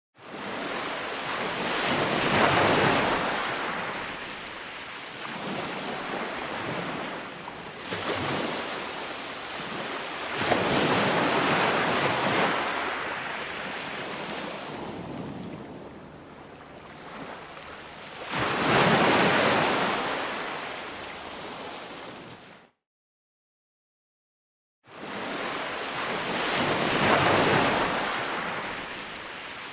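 Ocean waves breaking, a wash that swells and falls back in big surges about every eight seconds. The sound drops out to silence for about two seconds past the middle, then the waves resume.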